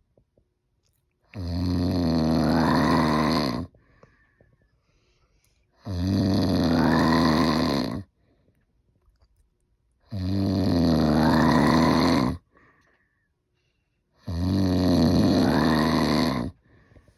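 Loud snoring: four long snores about four seconds apart, each with a pitch that rises partway through, and near silence between breaths.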